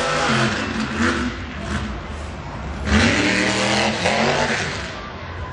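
Mega truck's engine revving hard in repeated bursts, the pitch climbing with each throttle stab as it charges over dirt mounds. The loudest burst comes about three seconds in.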